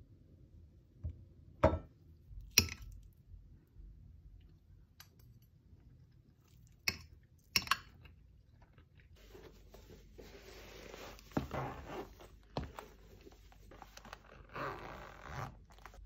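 Several sharp clinks of cutlery and food against a china plate, then several seconds of rustling with a few louder scrapes.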